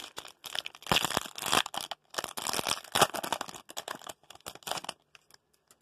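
A foil trading-card pack wrapper being torn open and crinkled in the hands: a dense run of sharp crackles and rustles that stops shortly before the end.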